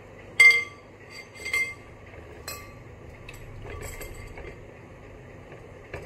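Metal spoon clinking against a glass mixing bowl about five times, each clink ringing briefly; the first, about half a second in, is the loudest.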